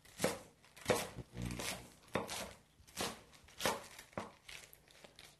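Chef's knife chopping bok choy stalks and leaves on a wooden cutting board: a series of sharp knocks of the blade through the vegetable onto the board, a little more than one a second.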